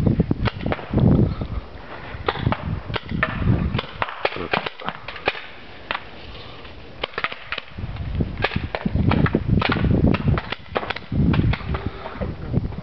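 Paintball markers firing: many sharp pops in quick, irregular runs, with a low rumble at times underneath.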